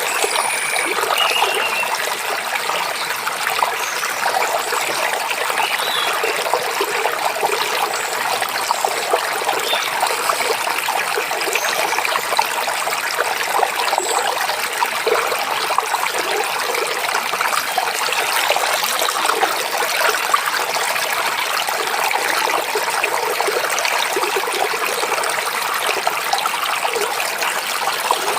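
Forest stream babbling and trickling steadily, with a few faint, short bird chirps in the first half.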